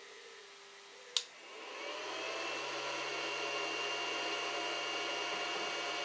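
A sharp click, then a 12 V inverter powering a mains fridge starts up: a whine rises in pitch and settles into a steady electrical hum and whir.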